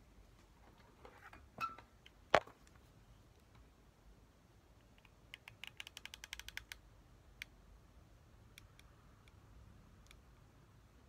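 A sharp knock on the workbench a little over two seconds in, then a quick run of small clicks, about ten a second, as a hot glue gun's trigger is squeezed to feed the glue stick, followed by a few scattered single clicks.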